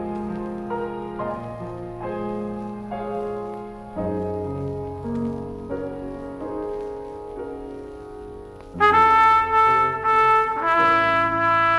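Solo piano playing a slow hymn introduction in sustained chords. About nine seconds in, a trumpet enters loudly with the melody over the piano accompaniment.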